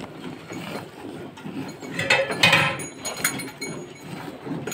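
Hand-milking into a steel bucket: streams of milk squirting from the teats into the milk already in the pail, with light metallic clinks. A louder noisy burst comes about two seconds in.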